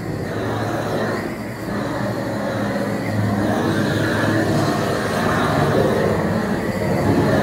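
A motor running steadily with a low hum and a dense, even noise over it.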